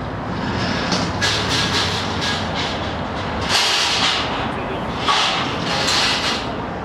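Outdoor street traffic: a steady rumble of vehicles, with several passing swells of louder tyre and engine noise.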